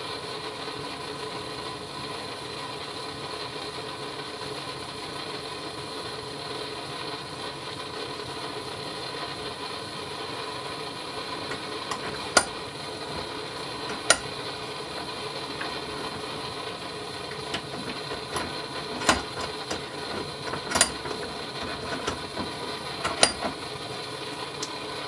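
Steady background hum, with several sharp metal clicks and taps from about halfway on as pliers work a small nut and bolt clamped in a steel bench vise.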